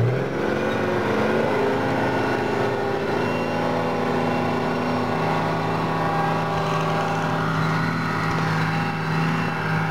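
Tracked armoured personnel carrier's engine running steadily, rising briefly in pitch early on and then holding an even note.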